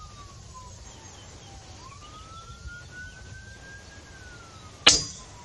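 A single PCP air rifle shot, a sharp crack about five seconds in. Before it, a faint siren wails, its pitch falling, then rising and falling again.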